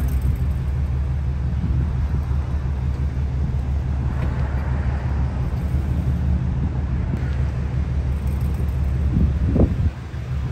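GMC Yukon Denali's V8 engine running with a steady low rumble as the SUV eases off the landscaping rock it was stuck on.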